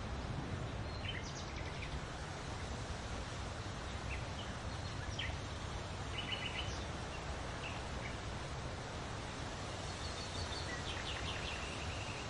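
Open-country ambience: a steady low rumble with small birds giving short, rapid chirping calls now and then, including a quick run of chirps about six and a half seconds in and another near the end.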